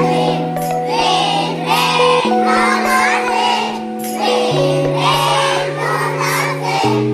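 A group of young children singing a song together over held backing chords that change about every two seconds.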